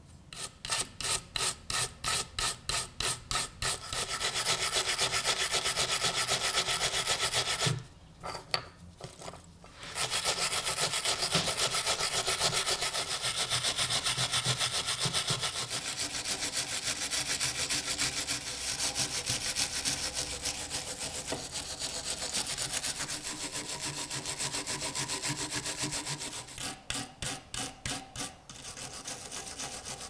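Hand wire brush scrubbing rust off a small steel pocket knife held in a vise. The strokes come separately at about three a second at first, then run into fast continuous scrubbing. There is a short pause about eight seconds in, and separate strokes come again near the end.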